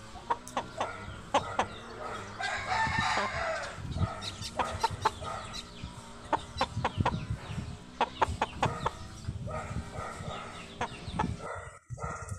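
Chickens clucking in short, repeated calls, with a rooster crowing once about two to three seconds in. A dog barks several times near the end.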